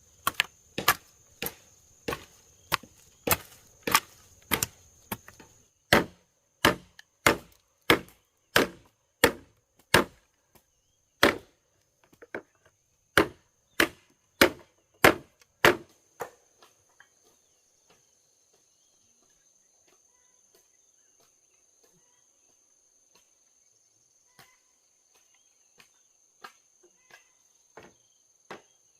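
A blade chopping bamboo: sharp wooden strikes, roughly two a second, for about sixteen seconds, then only a few faint scattered taps.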